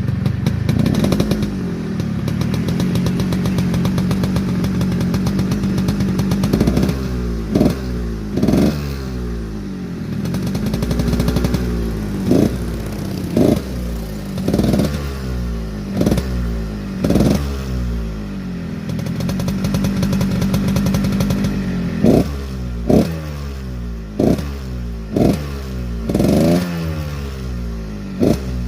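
Yamaha RX-King two-stroke single-cylinder motorcycle engine with a deep, snoring exhaust note. It idles steadily, then is blipped over and over in short sharp revs about a second apart, each dropping straight back to idle. There are two sets of blips with a stretch of steady idle between them.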